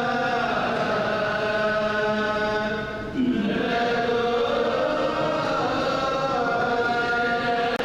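Ge'ez liturgical chant of the Ethiopic Divine Liturgy, sung on long held pitches, with a brief break about three seconds in.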